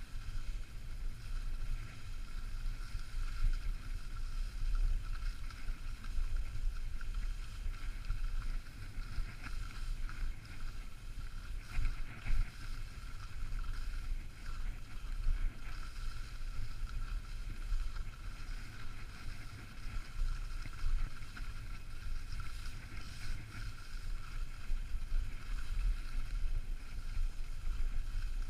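Wind buffeting a moving action camera's microphone: a low, gusting rumble that rises and falls unevenly over a steady hiss.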